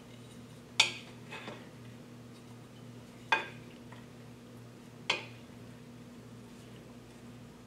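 Utensils clinking against a glass mixing bowl as a salad is tossed: three sharp clinks a couple of seconds apart, with a softer one soon after the first. A faint steady low hum runs underneath.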